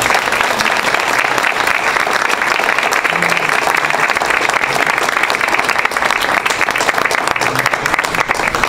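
Audience applauding, many hands clapping together in a dense steady patter that thins out near the end.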